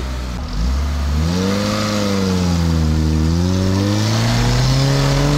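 Chevrolet Niva engine revving hard under load as the car claws its way up a rutted track of dry, fine sand. The revs rise about a second in, sag around the middle, then climb again and hold high.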